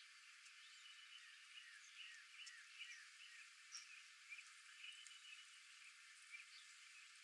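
Faint outdoor nature ambience: many short chirps and curved call notes from small animals, overlapping irregularly over a soft hiss.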